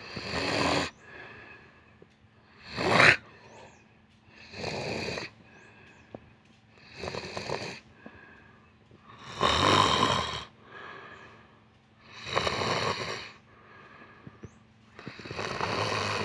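A sleeping person snoring, seven snores in a slow, regular rhythm, one about every two seconds.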